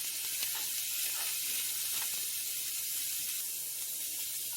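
Green onion and cauliflower crumbles sizzling steadily in hot oil in a frying pan, with a few faint light clicks.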